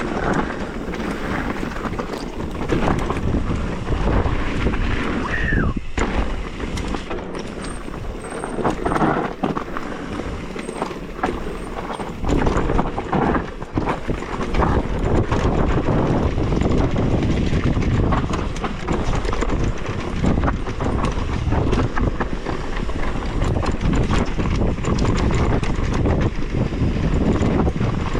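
Mountain bike descending a rough dirt trail: tyres on dirt and the bike rattling and clattering over bumps, with a brief squeal about five and a half seconds in.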